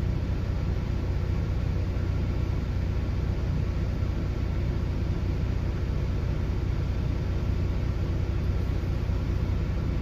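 Steady low rumble of a semi-truck's diesel engine running, heard from inside the cab.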